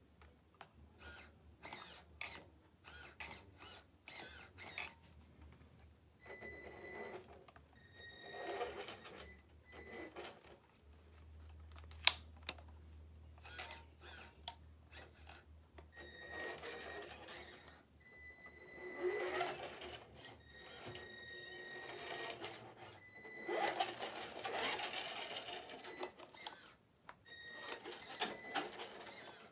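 Traxxas Rustler 2WD RC truck's Titan 12-turn brushed electric motor and uncovered spur gears whining in repeated short bursts of throttle as it drives over carpet, with a steady high-pitched tone during each burst. One sharp knock about twelve seconds in.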